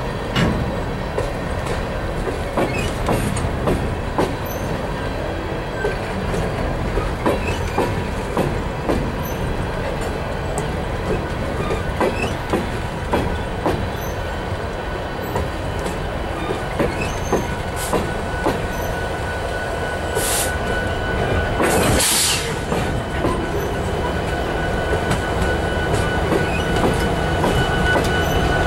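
Empty coal hopper cars rolling slowly past on jointed track: a steady rumble with frequent clicks and clanks from the wheels and couplers, and a thin steady squeal. About two-thirds of the way through there is a short, loud hissing burst. Near the end the rumble grows louder as the trailing locomotives draw near.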